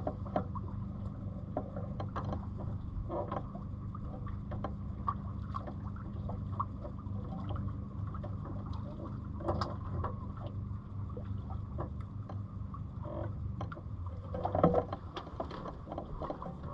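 Onboard sound of a Catalina 27 sailboat drifting in very light wind: a steady low rumble with scattered small ticks, knocks and creaks from the boat. A louder knock comes near the end.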